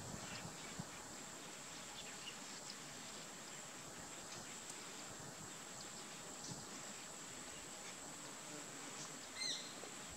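Steady grassland ambience dominated by a continuous high insect drone, with a short bird call near the end.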